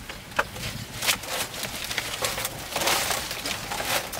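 Irregular clicks and short scraping noises, thickest about three seconds in.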